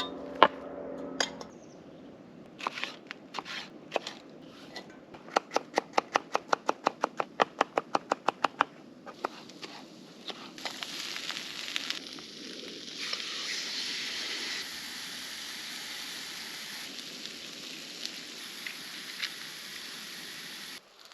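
Preparing a meal over a campfire: a run of about twenty quick, even taps, about five a second, then a steady crackling and hissing of a cooking fire with food sizzling on it.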